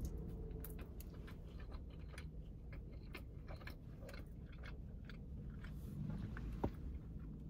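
A person chewing a bite of pepperoni pizza close to the microphone, with many small mouth clicks and smacks throughout and one sharper click about six and a half seconds in.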